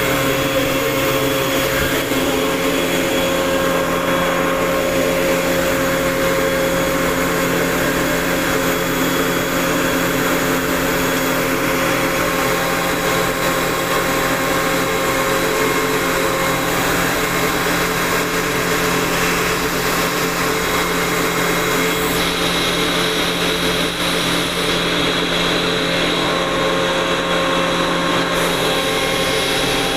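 Industrial rotary screw air compressor running steadily: a loud, constant machine hum with several steady tones over an even hiss. The high hiss thins out about two-thirds of the way in.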